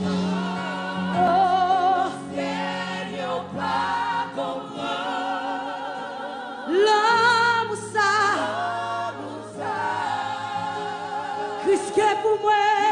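Live gospel worship music: a group of singers holds long notes with vibrato over a band's sustained low chords, swelling louder about seven seconds in and again near the end.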